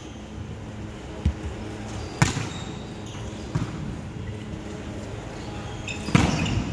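Volleyball being struck by hand in a rally, the hits echoing in a large sports hall: a sharp smack about two seconds in, softer knocks a second before and after it, and a louder burst of hits near the end as a player jumps at the net.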